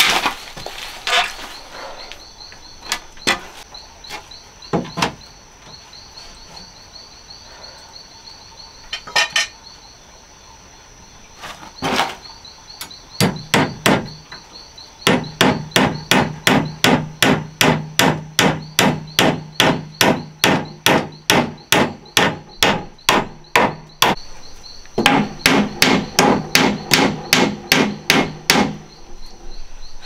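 Hammer striking a wooden post. A few scattered knocks come first, then steady blows about two a second in two long runs with a short break between them.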